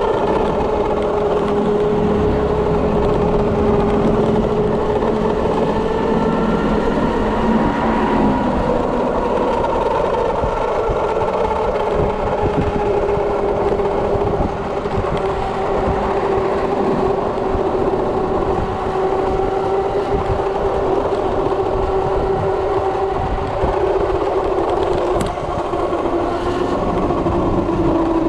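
Electric drive motor of a converted Kawasaki KLX motorcycle whining steadily under way, its pitch sinking slowly as the bike slows, over constant wind and road noise.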